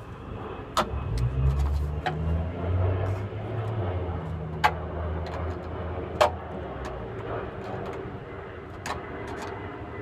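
Needle-nose pliers bending the cut end of a corrugated metal downspout: scattered sharp metal clicks and creaks, the two sharpest about halfway through. A low engine rumble runs underneath from about a second in until past the middle.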